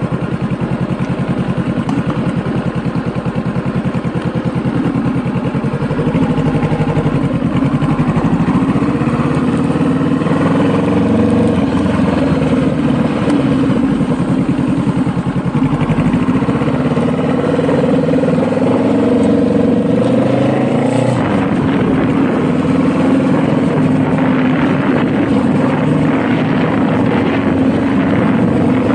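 Honda Rebel motorcycle engine running under way, its pitch rising as it accelerates, once about ten seconds in and again for a few seconds past the middle.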